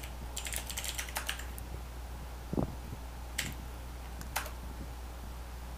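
Computer keyboard keystrokes: a quick run of several key presses in the first second and a half, then a few single presses about a second apart, over a low steady hum.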